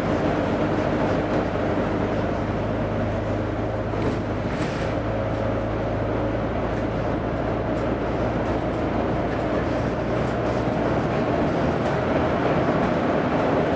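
Diesel engine of a Volvo B9TL double-decker bus, a nine-litre six-cylinder, running steadily under way, heard from inside the cabin along with road noise; its tone shifts about four seconds in.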